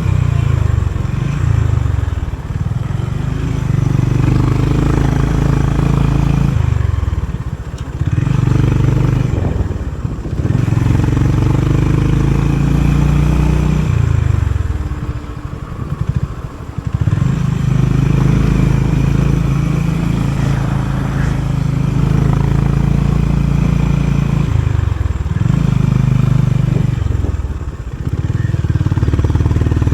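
Honda CB350RS single-cylinder engine with its stock exhaust, riding along. The engine note holds steady, then several times the revs fall away as the throttle closes and pick back up again.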